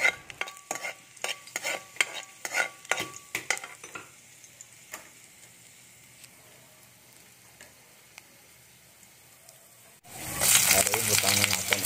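Garlic frying in hot oil in a metal wok, stirred with a metal spatula: a quick run of spatula clicks and scrapes against the wok with a faint ringing tone for the first four seconds, then only a faint sizzle. About ten seconds in, a much louder sizzle starts.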